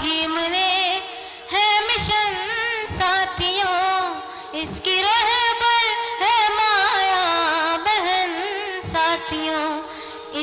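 A boy singing a Hindi song into a microphone in a high voice, the melody wavering and ornamented, over a steady held note in the accompaniment.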